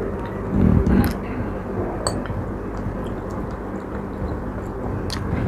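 Cutlery clinking against a plate a few times, one clink near two seconds in ringing briefly, with a dull low thump about half a second in, over a steady low hum.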